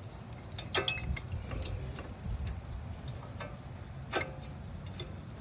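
Light metallic clicks and clinks of brake pad hardware being handled and fitted at the wheel: a sharp double clink just under a second in, another about four seconds in, and a few fainter ticks between.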